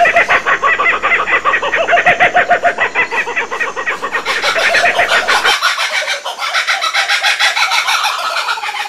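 Laughing kookaburras calling: a long run of rapid, repeated chuckling notes that rise and fall in a cackling chorus. The chorus is louder and fuller for the first five seconds or so, then thins and softens.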